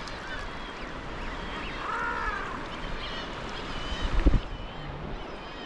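Water sloshing around a sea kayak, with a single arching seabird call about two seconds in and a few fainter calls after it. A low thump a little past four seconds.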